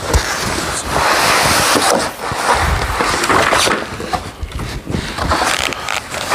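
Packaging rustling and scraping as the upright vacuum's main body is pulled out of its shipping box, with a few knocks; loudest in the first half.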